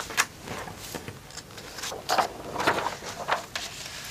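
Paper and a pencil being handled and passed back across a table: a few short rustles and light knocks.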